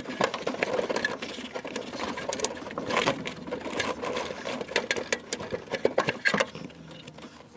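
Irregular metallic clicks, knocks and rattles of a heater unit being handled and pushed into place, its mounting bolts worked against drilled holes. The sound cuts off abruptly near the end.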